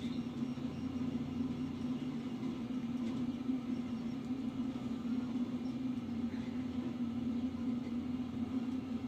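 Steady low mechanical hum with a faint rumble under it.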